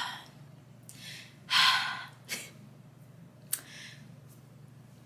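A woman crying, drawing a few sharp breaths, the loudest about a second and a half in and a fainter one near the end.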